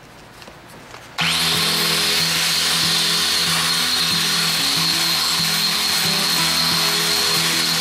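Angle grinder with a wire wheel starts about a second in and runs steadily with a high whine, wire-brushing an outboard cylinder head to clean its gasket surfaces.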